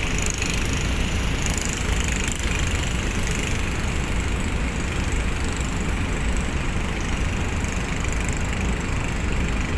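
Heavy truck engine running steadily with a deep, even rumble.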